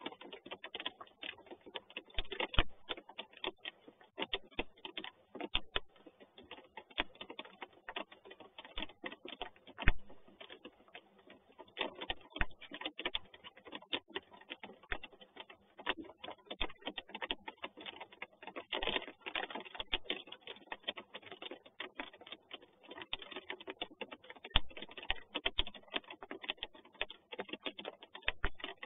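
Rain drops striking the falcon nest box close to the microphone: a continuous run of sharp, irregular ticks like typing.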